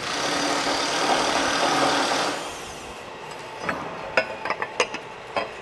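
Metal pump shaft sliding through the cast motor bracket and its carbon bushing, a scraping rush for about two seconds that fades away. Then a handful of sharp metallic clicks and clinks as the parts are handled.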